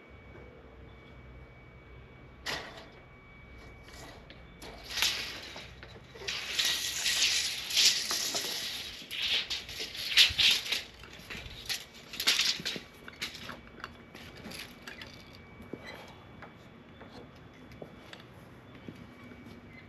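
Tools working on timber wall plates being marked out for studs: a sharp knock, then a run of rough scrapes with clicks over several seconds, then a few faint ticks.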